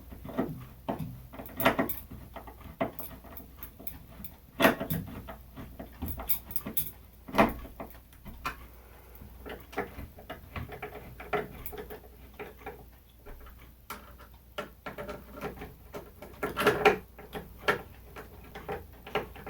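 Irregular clicks, taps and scrapes of hand tools and metal ceiling-fan mounting hardware being handled, with a few louder knocks spread through.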